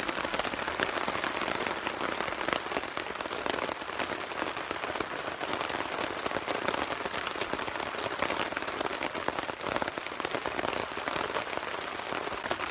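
Steady rain falling on a nylon tarp overhead, a constant hiss dotted with many separate drop hits.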